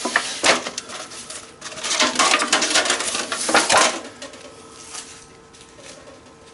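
Small metal pieces clinking and rattling as they are handled, with a couple of sharp clicks about half a second in and a busier clatter in the middle, fading to quieter handling noise after about four seconds.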